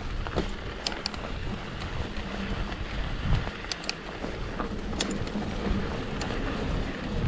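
Mountain bike riding a dirt trail: wind buffeting the camera microphone over steady tyre and drivetrain noise, with a few sharp clicks and rattles from the bike.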